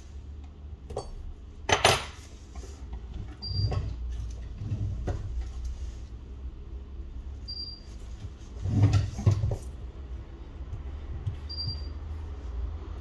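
Small hand tools and phone parts clicking and knocking against each other and the work surface while a smartphone is taken apart, with the sharpest knocks a little under two seconds in and a cluster around nine seconds. A brief high beep recurs about every four seconds.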